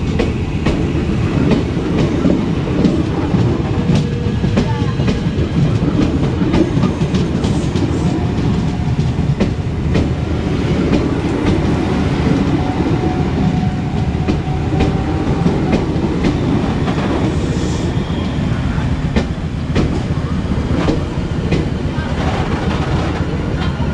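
Tokyu 8500-series electric commuter train pulling into the station, a steady heavy rumble with wheels clicking over rail joints and points. A faint steady whine comes in about a third of the way through and fades out past the middle.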